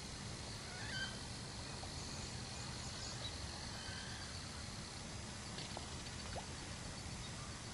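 Outdoor ambience: a steady low rumble with a few faint, short bird calls, the clearest about a second in and more around three to four seconds.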